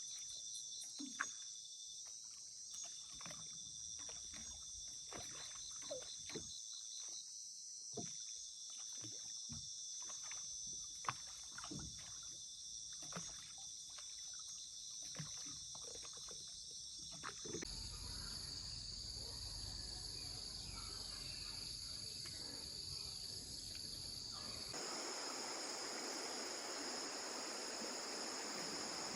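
Insects trill steadily over a run of irregular knocks and splashes, like a small boat being worked on the water. After a cut, a low rumbling noise takes over, and near the end an even rush like running water.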